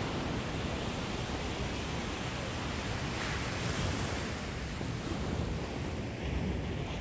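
Surf washing onto a sandy beach, a steady noise of breaking waves, with some wind on the microphone.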